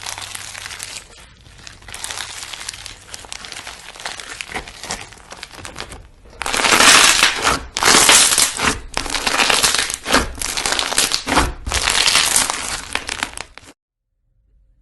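Slime being squeezed and pressed by hand, a dense crackly noise. About six seconds in it turns into a run of about five louder squeezes, each around a second long, then cuts off suddenly near the end.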